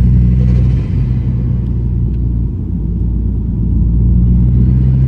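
Turbocharged Ford Focus ST engine with a hybrid turbo, running at low revs. The engine sound dips suddenly about a second in and again around two and a half seconds, then the revs climb steadily near the end.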